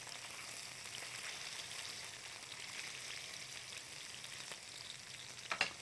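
Skin-on fish pieces frying in oil in a nonstick pan: a steady, quiet sizzle with fine crackling.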